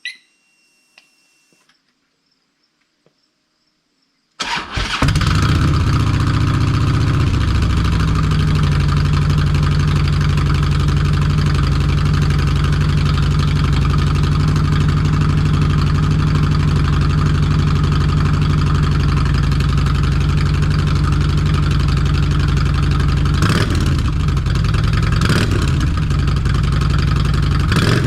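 2008 Harley-Davidson Street Glide (FLHX) V-twin engine, fitted with slip-on mufflers, starting about four seconds in after a few faint clicks, then idling steadily and loud, with two brief throttle blips near the end.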